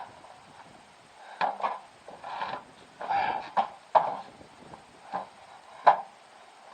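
Irregular knocks and scrapes, about eight sharp ones spread over the few seconds, with short scuffing noises in between.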